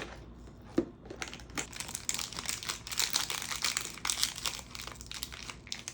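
Crinkling and crumpling of packaging as a door of a cardboard advent calendar is pried open and a small toy figure is taken out, with a few sharp clicks at first and then about four seconds of dense crackling.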